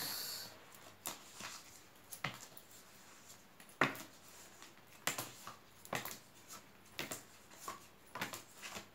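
Tarot cards being handled and dealt onto a table: a brief papery rustle from the deck at the start, then a string of soft, irregular taps and slides as cards are laid down one after another.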